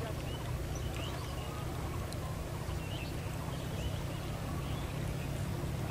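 Outdoor ambience: a steady low rumble, with short faint bird chirps every second or so.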